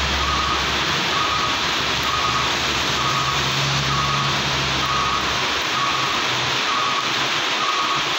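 Heavy rain pouring steadily onto a paved road, a dense hiss throughout. Under it is the low engine rumble of passing trucks, which fades out a little past halfway.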